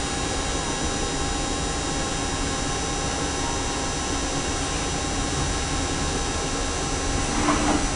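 Hardinge T42 CNC lathe running steadily: a constant machine hiss and hum with faint steady whining tones on top.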